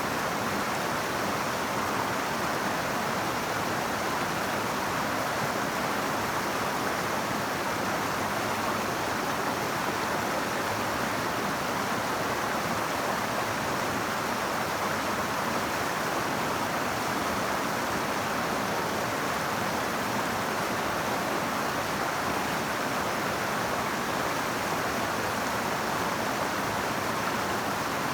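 Cape Fear River flowing: a steady, even rush of water with no breaks or changes.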